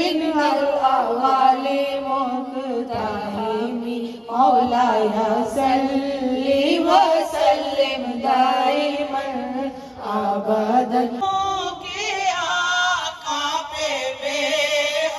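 A group of women singing a naat (an Urdu devotional song in praise of the Prophet) together in unison, without instruments, in long phrases with short pauses between them.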